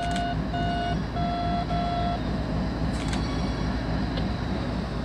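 Diesel locomotive air horn sounding four short blasts in quick succession, the last two on a slightly different chord, over the steady low rumble of the approaching locomotives' engines.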